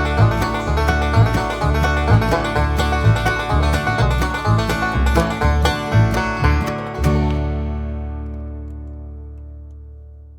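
Upbeat bluegrass-style music with banjo and guitar over a steady bass beat, ending about seven seconds in on a held chord that rings and slowly fades.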